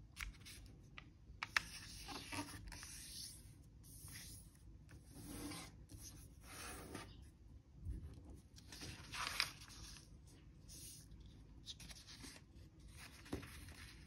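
A sheet of thin origami paper rustling and crinkling as hands fold it and press the creases flat, with a few sharp crackles of the paper.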